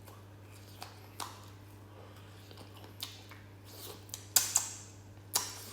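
Close-up eating sounds: chewing and biting into spicy duck wing mid-sections, with scattered sharp crunches and clicks, the loudest twice near the end.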